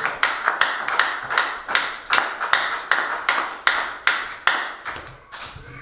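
Hand clapping in a steady rhythm, about four claps a second, dying away near the end.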